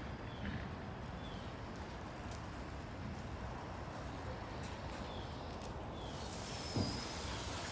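Outdoor yard ambience: a steady low rumble with a small bird's short falling chirps a few times, and a single soft thump near the end.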